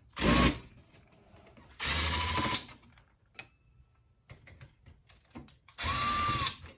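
Small electric screwdriver whirring in three short runs of under a second each, backing out small screws from a circuit board, with a few light clicks of parts being handled between runs.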